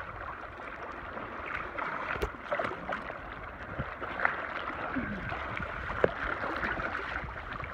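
Small waves washing and gurgling against shoreline rocks, a steady watery splashing with a few sharp clicks, the loudest about six seconds in.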